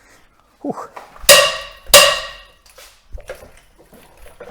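Two loud ringing metal clanks about half a second apart, from a 17 mm socket and wrench being fitted onto the steering rack mounting bolts, followed by a few light metallic clicks.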